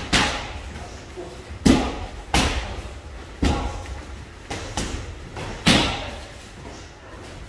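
Gloved strikes landing on Muay Thai pads: about half a dozen sharp smacks at irregular intervals, the loudest about a second and a half in and near the end, each echoing briefly in the hall.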